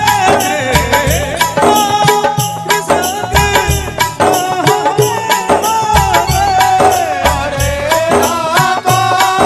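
Live Hindu devotional kirtan: a male voice sings a melody through a microphone, backed by an electronic keyboard and a dholak drum keeping a steady beat.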